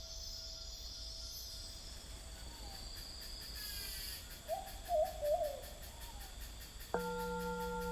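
Rainforest night ambience: a steady high chirring of insects, with an owl hooting several short times around the middle. Near the end a crystal singing bowl comes in suddenly with a sustained ringing tone.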